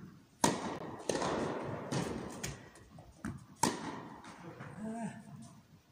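Tennis rally on an indoor carpet court: racquets striking the ball and the ball bouncing, a string of sharp hits roughly once a second through the first four seconds, each ringing out briefly in the hall. The first hit, about half a second in, is the loudest.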